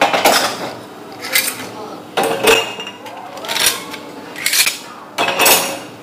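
Ladles and other kitchen vessels clattering against each other and the dishwasher rack as they are loaded in, a sharp clatter about once a second.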